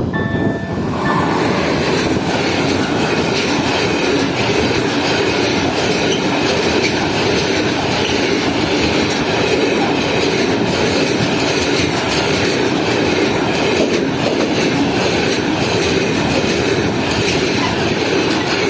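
Freight train of covered wagons rolling past at speed, steel wheels clacking steadily over the rail joints.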